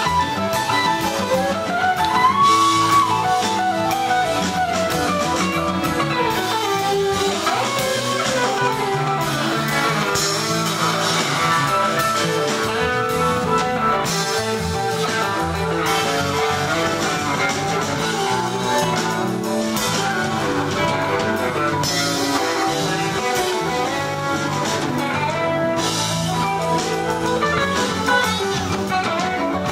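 Live rock band playing an instrumental passage: electric guitars, bass guitar, drum kit and keyboard, with a lead guitar line whose notes bend and slide in pitch.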